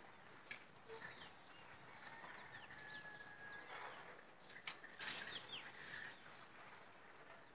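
Faint rural outdoor ambience with scattered short bird chirps and whistles, and a few soft clicks.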